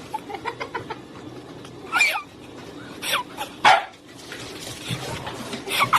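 A dog barking a few times, short separate barks.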